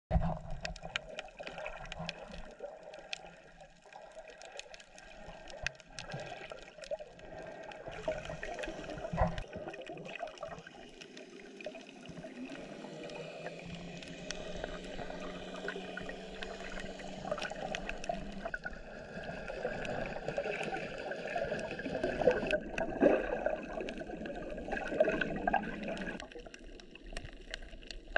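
Underwater sound picked up by a camera submerged in the sea: muffled water noise and bubbling with many scattered sharp clicks. A faint steady hum grows louder in the second half and cuts off a couple of seconds before the end.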